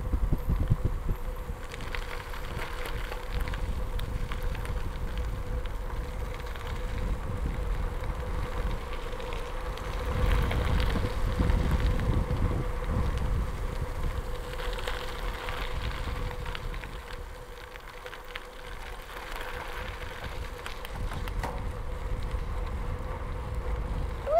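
Riding a bicycle on a gravel road: wind rumbling on the microphone and tyre noise on the gravel, swelling for a few seconds midway, over a faint steady hum.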